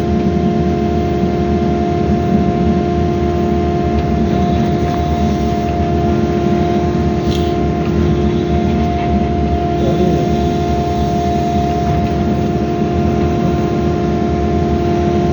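Excavator engine and hydraulics running steadily, with a constant whine over a rough low drone and one brief click about seven seconds in.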